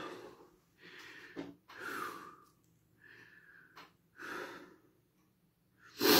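A man breathing hard in short, noisy gasps, about six of them a second or so apart, the last one loudest near the end: breathing through the burn of very spicy hot chicken flavour ramen.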